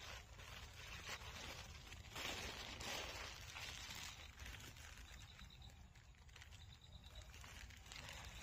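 Faint outdoor ambience with rustling, louder around two to four seconds in, and a faint high chirping that repeats in short runs in the second half.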